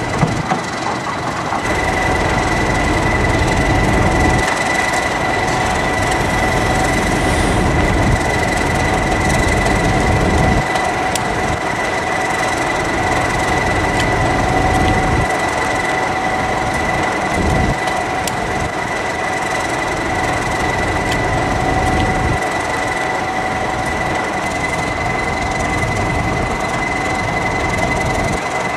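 Train wheels squealing on curved track as a Class 31 diesel-hauled train creeps into the platform: a steady, unbroken screech at two fixed pitches, one high and one lower, over a low rumble of the train rolling.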